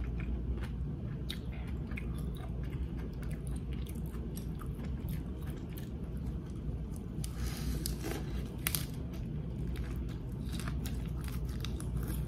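A person chewing a lettuce wrap with grilled pork neck: irregular crisp crunches, thickest about seven to nine seconds in, over a steady low hum.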